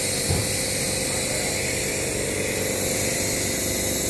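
COF bonding machine running through its automatic bonding cycle: a steady hiss over a low hum, with one brief low thump about a third of a second in.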